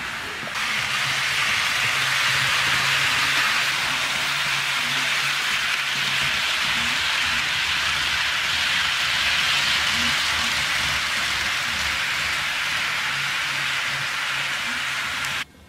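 HO-scale model freight train rolling on sectional track, a steady rushing hiss of wheels on rail with a faint low hum underneath. It cuts off suddenly near the end.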